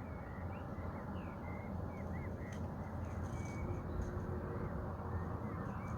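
A steady low rushing drone from an unidentified distant source, with short faint bird chirps scattered over it.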